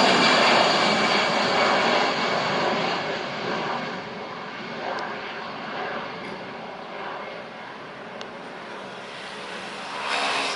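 Jet airliner's engines at takeoff power, loud at first and fading steadily over about four seconds as it climbs away, leaving a lower, fainter rumble. Near the end a road vehicle swells past briefly.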